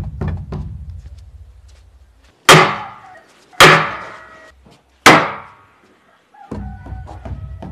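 Hammer blows driving wooden wedges into the rope-and-timber frame around a large wooden drum, tightening its rawhide head while it dries. A few quick knocks at the start are followed by three heavy strikes about a second apart, each ringing out, and a run of lighter knocks near the end.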